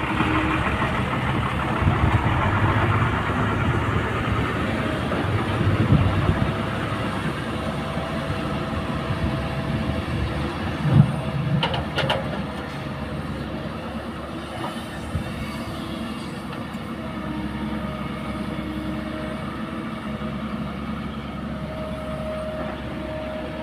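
Caterpillar E120B hydraulic excavator's diesel engine running under load as it digs and swings, with dull thumps from the bucket working the earth. The loudest event is a thud with a brief rattle about eleven seconds in, as a bucketful of soil is dropped into a dump truck's bed.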